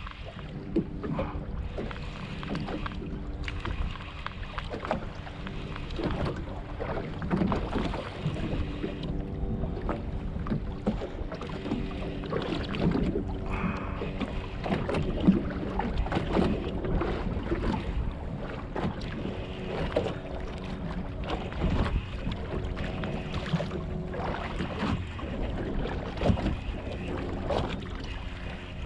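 Water slapping and splashing against a small boat's hull, with wind on the microphone and scattered knocks. Under it runs a steady multi-tone hum from an electric trolling motor holding the boat over the fish; the hum drops out for a moment about a third of the way in.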